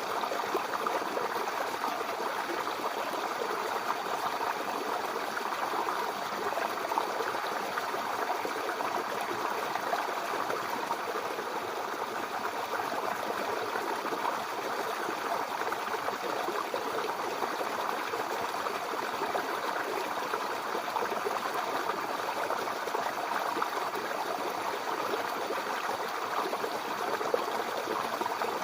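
Shallow brook babbling and trickling over stones, a steady flowing water sound.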